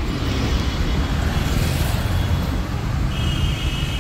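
Street traffic heard from an open cycle rickshaw: a steady low rumble of passing vehicles and road noise. A brief high steady tone sounds near the end, lasting under a second.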